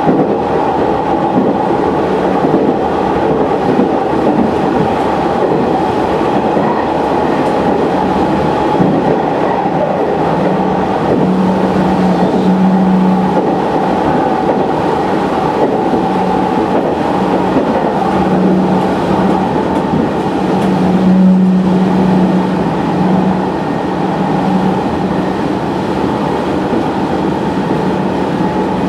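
Sanriku Railway Class 36 diesel railcar under way, heard from inside the car: steady engine and running noise with the wheels rolling on the rails. A low hum swells and fades several times in the second half.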